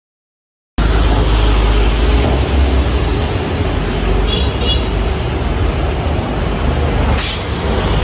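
City street traffic noise: a loud, steady rumble of passing vehicles that comes in suddenly about a second in.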